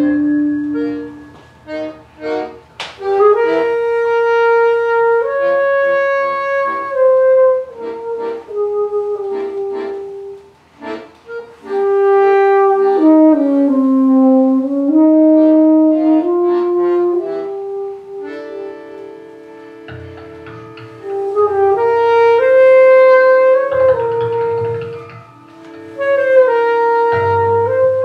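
Free-improvised saxophone and accordion music. Held notes bend and slide between pitches, with runs of short detached notes, and a sustained low chord comes in about two-thirds of the way through.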